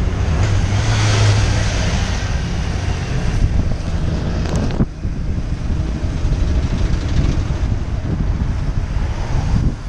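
Wind buffeting a bicycle-mounted action camera's microphone while riding, over the steady noise of road traffic and tyres on wet tarmac. A passing vehicle's engine adds a low steady hum about a second in, and the noise briefly drops near the middle.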